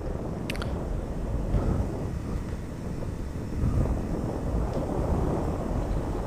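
Motorcycle riding at steady speed: a steady engine and road drone with wind rumble on the bike-mounted microphone. A brief high chirp sounds about half a second in.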